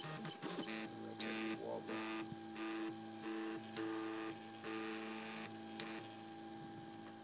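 Printrbot Simple 3D printer's stepper motors running as the print head moves back and forth laying down infill, the motor tone jumping to a new pitch every half second or so with each move. A faint steady high tone runs underneath.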